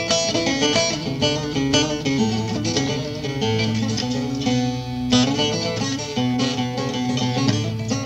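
Solo bağlama (Turkish long-necked saz) playing a fast plucked melody over ringing drone strings. One note is held about halfway through before the quick plucking resumes.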